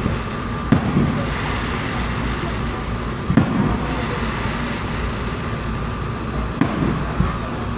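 Fireworks shells bursting at a display: about five booms spread through, over a steady background din.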